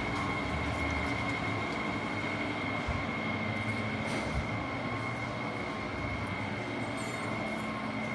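Steady running noise of a moving vehicle, with a constant high-pitched whine over an even rumble.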